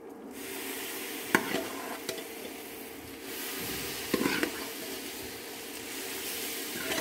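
Wet boiled pumpkin mash landing in a kadai of hot ghee-roasted wheat flour, setting off a steady sizzling hiss. A metal ladle clinks against the pan about a second in, and again at about four seconds.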